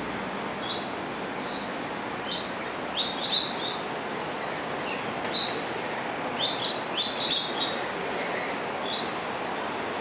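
Coconut lorikeet calling: short, loud, high-pitched screeches in quick clusters, about three seconds in, again around six to seven and a half seconds, and near the end, over a steady hiss.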